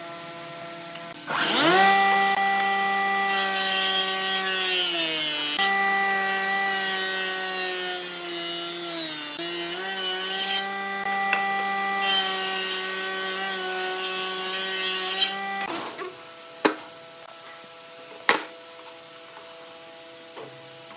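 Electric woodworking power tool cutting wood: the motor starts, runs loud and steady, and its pitch sags twice as it bites into the wood. It stops about three-quarters of the way through, and two sharp knocks follow over a faint steady hum.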